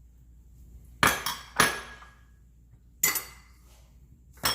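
Metal spoon clinking sharply against a bowl while ricotta is dolloped onto a pasta dish: two clinks about a second in, another at about three seconds and one more at the end.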